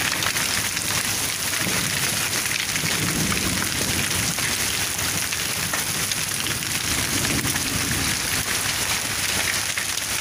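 Heavy rain mixed with hail pelting the ground and puddles: a steady hiss of downpour with dense small ticks of hailstones striking.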